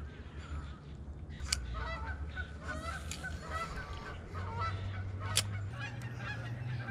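Birds calling, many short calls in quick succession from about a second and a half in, with two sharp clicks, one about a second and a half in and one just past five seconds.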